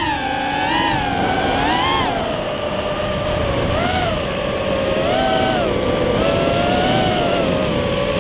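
FPV quadcopter's motors and propellers whining, the pitch swelling up and down in short bumps as the throttle changes and settling a little lower after the first two seconds. A steady rush of air is heard on the drone's onboard camera microphone.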